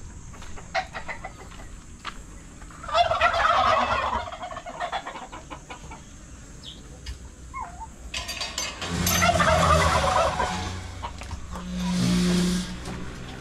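Farmyard poultry calling in two loud bursts of rapid, rattling calls, about three seconds in and again about nine seconds in, with faint peeps and clicks between.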